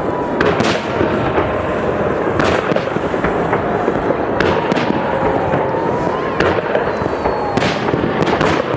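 Salute fireworks going off: shells bursting sharply about every one and a half to two seconds over a continuous dense crackle.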